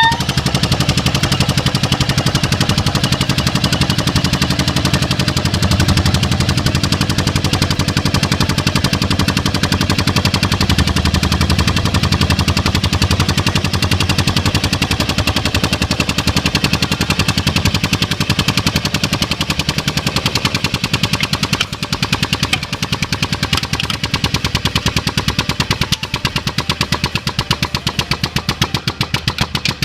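Air horn sputtering as its crushed canister vents propellant, its diaphragm chattering in a fast, even rattle rather than sounding its tone. The rattle weakens and turns uneven over the last several seconds as the gas runs out.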